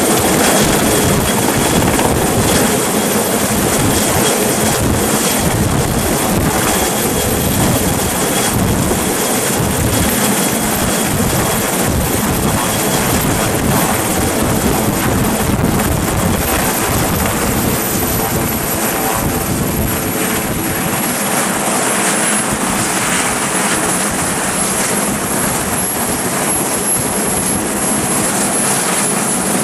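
Sikorsky S-61 helicopter's rotor and twin turboshaft engines running loud and steady, with a thin high whine that drops slightly in pitch about two-thirds of the way through.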